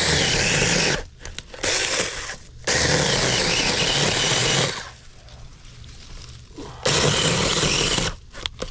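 Sharklogger cordless mini chainsaw running in three bursts of a second or two each, its chain cutting into a small wooden stump, with quieter pauses between the bursts.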